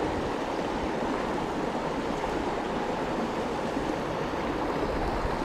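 Creek water rushing in a steady, even wash.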